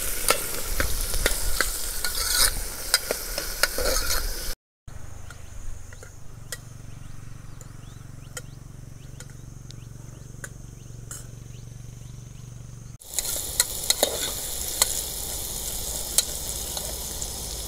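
Sliced onions sizzling as they fry in oil in an aluminium pressure cooker, with a steel ladle stirring and clicking against the pot. About five seconds in, the sizzling drops away to a quieter low hum for about eight seconds, then the sizzling and stirring come back.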